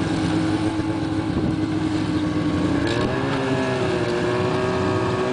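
Snowmobile engines running at low speed, a steady drone whose pitch rises briefly about three seconds in.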